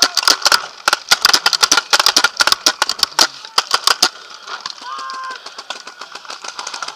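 Paintball markers firing in rapid volleys, many sharp shots a second for the first four seconds, then thinning to scattered fainter shots.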